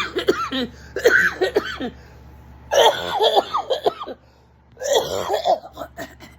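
A woman's voice in four short, loud bouts of non-speech sound, cough-like or laugh-like, with brief pauses between them.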